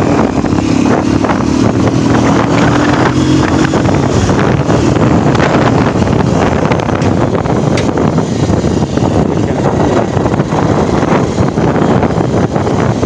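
A motorcycle ridden along a road, heard from the rider's seat: heavy wind rushing over the microphone on top of the steady running of the engine. The engine's hum is clearest in the first few seconds, then the wind noise covers most of it.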